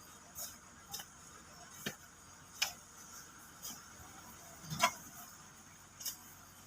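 Short, irregular crunches and scrapes of crushed stone dust being worked, about one a second, the loudest nearly five seconds in.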